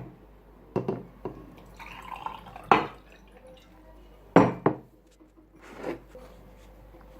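Containers being handled: five or six separate knocks and clinks as hard jars or bottles are moved and set down, a second or more apart.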